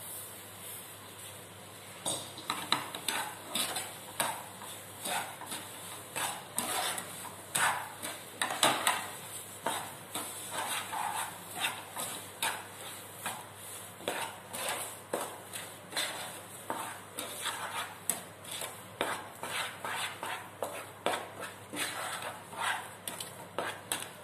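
Wooden spatula stirring and scraping thick rava kesari around a non-stick kadai, as sugar is worked into the cooked semolina. Quick, repeated strokes, about two a second, start about two seconds in.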